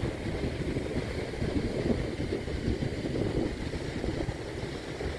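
Wind buffeting the microphone, an uneven low rumble that rises and falls.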